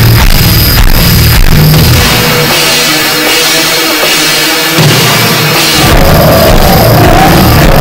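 Deathcore/gorenoise metal song with dense, pounding drums and distorted guitars. The drums drop out for about three seconds in the middle, then crash back in, and a wavering high line joins near the end.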